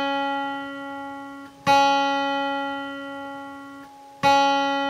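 Guitar's open top string, tuned down to D for D-A-G-D-A-D open tuning, plucked and left to ring. The same single note rings on at the start, is plucked again about a second and a half in and again near the end, and fades slowly each time.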